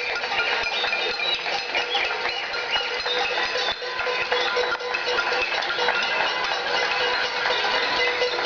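Many pots and pans being banged together with spoons: a dense, continuous clatter of ringing metal strikes from many hands at once, the noise of a pot-banging protest.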